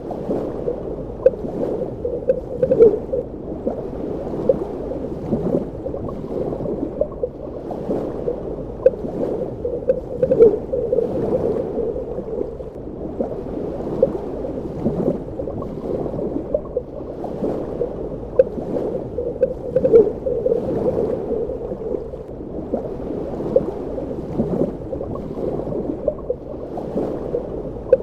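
Muffled underwater ambience: continuous low, dull bubbling and gurgling with short bubble blips every second or two.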